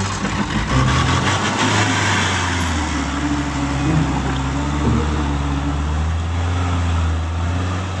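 Diesel engine of a tanker truck working hard as it drags through deep mud: a steady, loud low drone.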